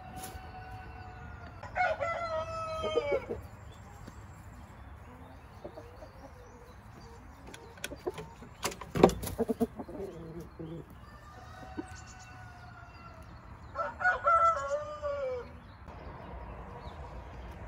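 Rooster crowing twice, each crow a long call that drops in pitch at the end, the second near the end. A sharp knock comes between the two crows.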